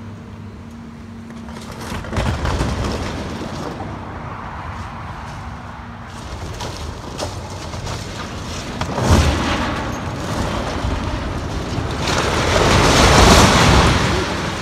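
A tall concrete farm silo collapsing. There is a sharp crack about nine seconds in, then a long, heavy crash that swells to its loudest near the end. Under it runs the steady engine of a Hitachi excavator.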